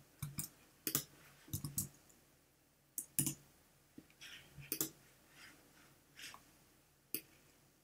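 Scattered clicks of a computer mouse and keyboard: about half a dozen sharp clicks at irregular intervals, with fainter softer taps between them.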